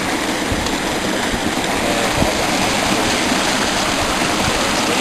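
River water rushing past, a steady, loud wash of noise that does not let up.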